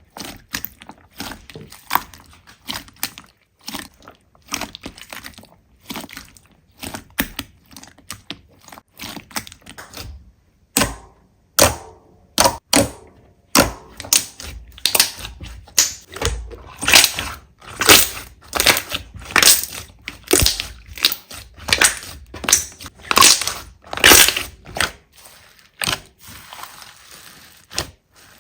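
Slime being squished and mixed, giving a run of sharp crackling pops and clicks, sparse at first, then louder and more frequent after about ten seconds.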